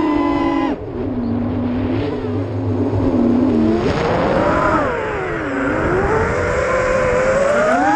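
Racerstar 2205 2600 kV brushless motors of a QAV210 racing quadcopter spinning DAL 5045 three-blade props: a layered whine that drops sharply as the throttle is cut about a second in, stays low for a few seconds, then climbs, dips and climbs back up with throttle.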